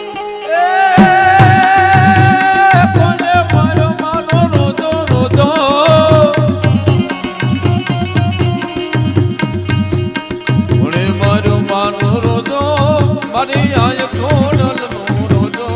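Gujarati folk devotional music: hand drums keep a steady beat under a melody line, with one long held note starting about half a second in and lasting a couple of seconds before the melody moves on.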